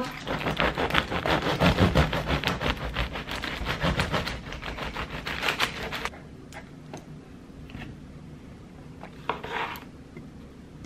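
Kitchen knife sawing through a crusty baguette on a wooden chopping board: a dense, crunchy rasp of quick strokes for about six seconds. After that it goes quieter, with a few knife knocks on the board as cherry tomatoes are cut.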